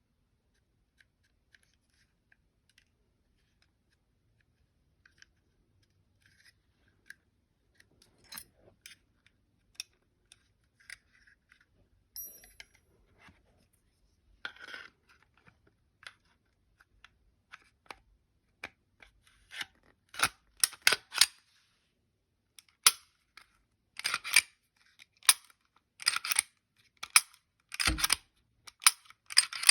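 Metal parts of a Glock 29 pistol clicking and snapping as it is put back together: scattered faint clicks at first, then louder, quicker clusters of sharp clicks in the last third, with one heavier knock near the end.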